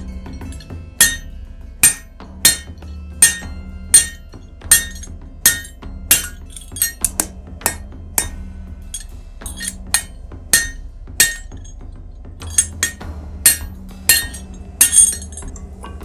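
Blacksmith's hand hammer striking hot mild steel on an anvil: a steady run of ringing metallic blows, roughly one every 0.7 s, with a short pause about eleven seconds in, as the bar is forged to a triangular section.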